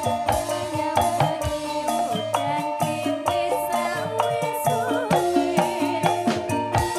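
Live campursari music: a band plays a melody of struck, mallet-like notes over steady drum hits and a shaker-like rattle.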